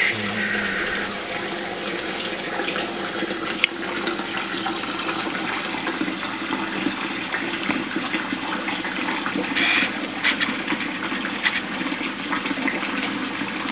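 Kitchen tap running steadily into the sink, filling a bowl of water to thaw frozen salmon, with a single sharp knock about four seconds in.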